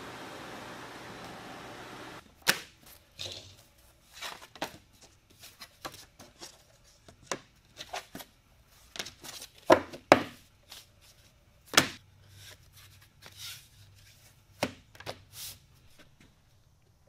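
Steady machine noise from a wide-belt sander running cuts off about two seconds in. It is followed by irregular sharp knocks, clicks and taps of wooden blanks and thin veneer sheets being picked up and set down on a wooden workbench. The loudest knocks come about two-thirds of the way through.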